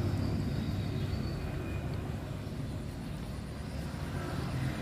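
A distant engine's low rumble, fading over the first few seconds and then holding steady.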